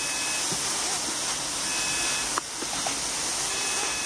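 Steady hiss of escaping steam from a miniature live-steam locomotive.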